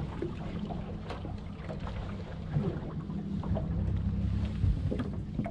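Small fishing boat's motor idling as a steady low rumble, with wind on the microphone and a few faint clicks and knocks on deck.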